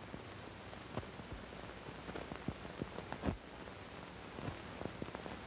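Steady hiss of an old film soundtrack with scattered clicks and pops, and no narration or music. The loudest pop comes a little past three seconds in.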